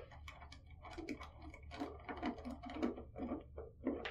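Irregular small clicks and taps of hand work: a screwdriver picked up off the desk and a wire's ring terminal fitted onto the terminal stud of a Garmin PowerSwitch module.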